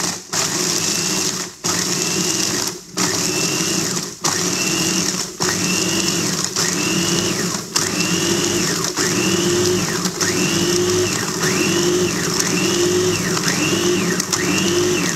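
Electric meat grinder/food chopper motor running on its meat-grinding setting, crushing ice in a glass bowl. Its pitch rises and falls about once a second, and it is cut off briefly several times in the first half as the button is released and pressed again.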